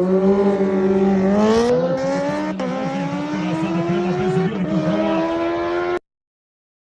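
High-performance combustion engine accelerating hard at full throttle, its pitch climbing steadily and dropping back sharply twice as it shifts up, then cutting off abruptly about six seconds in.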